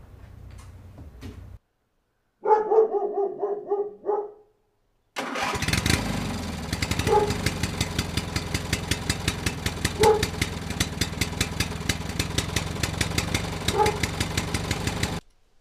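A dog barks several times. Then, about five seconds in, a tractor engine starts and chugs steadily with a rapid even knock. Over the engine a single bark sounds three times, and the engine cuts off abruptly near the end.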